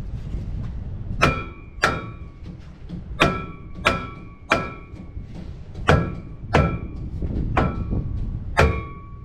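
Hammer blows on a 2015 Ford F-350's steel steering knuckle (spindle), about nine sharp metallic clangs in uneven pairs, each ringing briefly. The knuckle is being knocked loose from its ball joints so it can come off.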